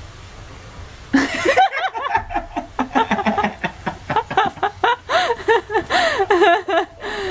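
A person laughing hard in quick, rising-and-falling bursts, breaking out about a second in.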